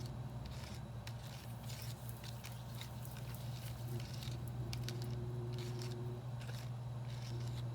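Small plastic stirrer scraping and tapping irregularly in a plastic tray, mixing Popin' Cookin' candy powder with water into a wet paste, over a steady low hum.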